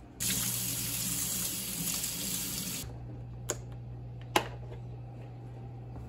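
Kitchen faucet running as humidifier parts are rinsed under it, cutting off about three seconds in. Then two sharp clicks, the second louder.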